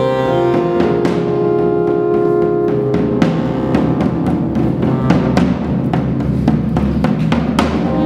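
Live electronic music: held synthesizer tones under irregular strikes on a drum beaten with a stick, the hits coming more often in the second half.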